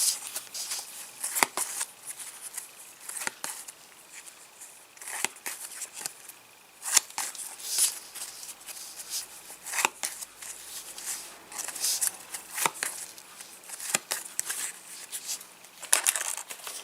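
Match Attax trading cards being handled and flicked through: irregular soft rustles and clicks of card against card, with a handful of sharper snaps spread through.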